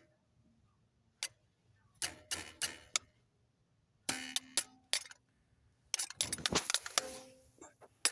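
Irregular clusters of sharp clicks and taps: a single click about a second in, then bunches of rapid clicks that come and go.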